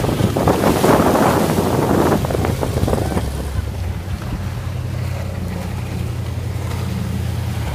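Offshore powerboat engines running at speed across choppy water, with wind buffeting the microphone. After about three and a half seconds the gusts ease and a steady low engine drone remains.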